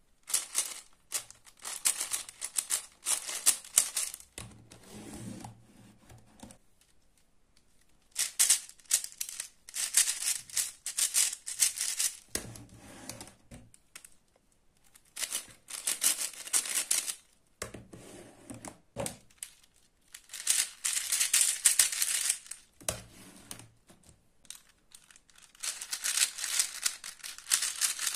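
Stickerless plastic speed cubes (big 7x7 down to 4x4 puzzle cubes) being turned fast by hand: rapid rattling clicks of the layers in bursts of a few seconds, with short pauses between.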